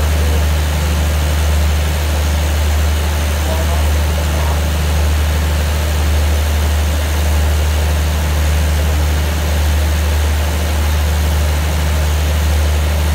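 Steady, deep hum of a standing diesel passenger train idling at the platform.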